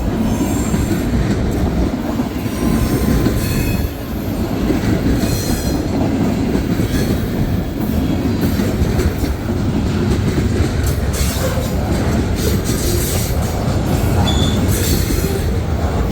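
Freight cars of a long mixed freight train rolling past on a curve: a steady loud rumble and clatter of the wheels, with thin high wheel squeals coming and going several times as the wheel flanges grind against the rail.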